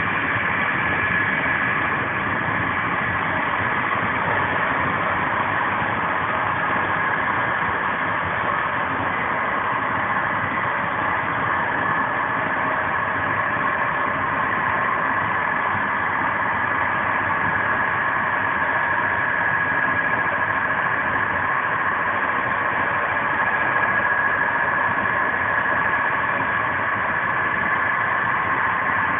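Steady running noise of an intercity passenger train at speed, heard from inside a Corail coach: wheels on rail with a constant rushing sound and a steady high hum.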